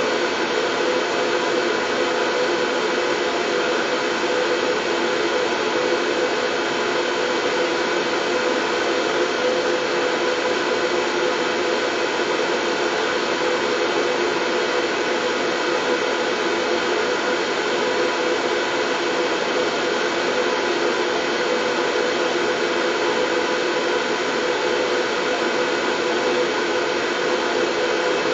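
Steady white noise: an even rushing hiss with a faint hum of steady tones in it, unchanging in level or pitch.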